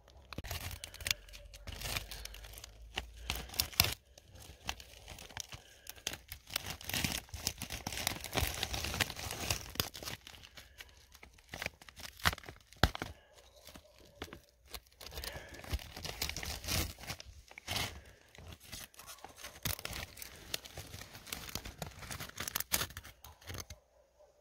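Metal scraper blade scraping a layer of frost and ice off a hard surface: a rough, crunching scrape in repeated irregular strokes, with crackles as the ice crystals break and pile up.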